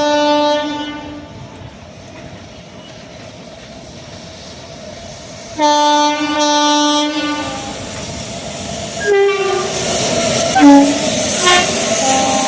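Horns of Indian Railways WAG-class electric freight locomotives: a short blast at the start, a longer blast about six seconds in, then brief, lower horn notes around nine to eleven seconds. Rising wheel-on-rail rumble and clatter of the passing locomotives lies under the later notes.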